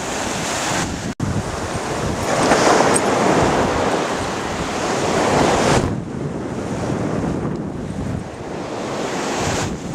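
Ocean surf washing onto a beach, with wind buffeting the microphone. The surge swells about two seconds in and eases off around six seconds in.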